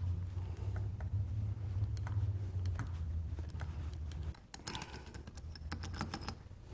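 Light clicks and taps of small metal parts and a screwdriver as jets and screws are fitted back into an EMPI 40 IDF carburetor, the clicks coming thicker in the second half. A steady low hum runs underneath and stops about four seconds in.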